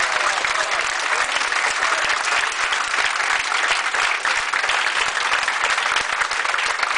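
An audience of many people applauding steadily, a dense patter of hand claps.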